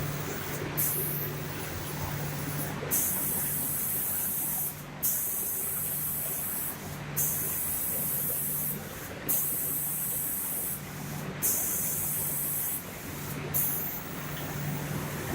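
Spray guns of an SPD2500C automatic door spraying machine hissing in repeated bursts, switching on and off about every two seconds, over a steady low machine hum.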